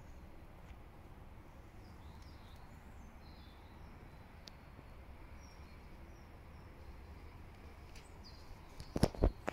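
Quiet outdoor background: a steady low rumble with faint, scattered bird chirps. About nine seconds in there are two sharp knocks in quick succession.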